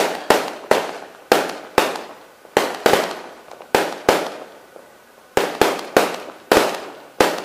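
Aerial fireworks bursting overhead: a quick, uneven series of sharp bangs, about two a second, each trailing off in an echoing tail, with a pause of about a second midway.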